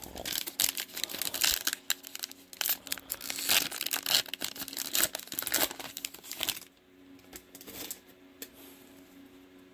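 Foil trading-card pack torn open and its wrapper crinkled: dense crackling for about six and a half seconds, then only a few faint clicks.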